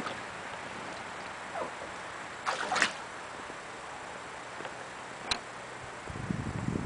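Water sloshing and splashing beside an inflatable boat. The loudest splash comes about two and a half seconds in, a single sharp knock about five seconds in, and a low rumble near the end.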